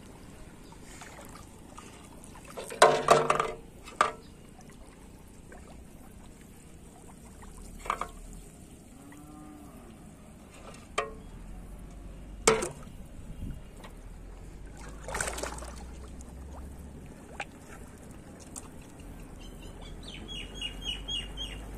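Shallow water splashing and trickling in short bursts, with a few sharp handling knocks, as a man stands in it working with a plastic bottle and fishing line.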